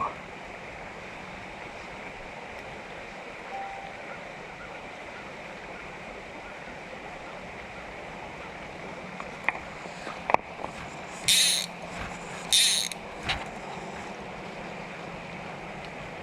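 Steady rush of a flowing mountain trout stream. About two-thirds through come a few sharp clicks and two short, loud hissing bursts.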